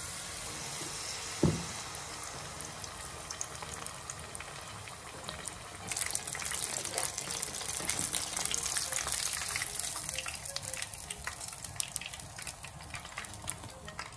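Tempura-battered mangrove jack fillet deep-frying in hot oil: a steady sizzle full of crackles and pops that grows louder about six seconds in. A single sharp knock sounds about a second and a half in.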